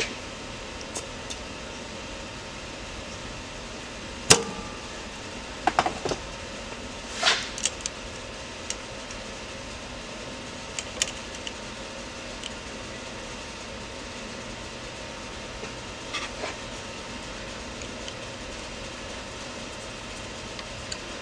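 Small metal distributor parts being handled by hand: scattered sharp clicks and taps of screws and the points plate, the loudest about four, six and seven seconds in, over a steady background hum.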